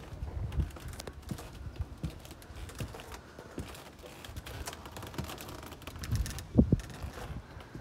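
Footsteps on hollow composite decking: an irregular run of soft knocks and low thuds, with two louder thumps about six and a half seconds in.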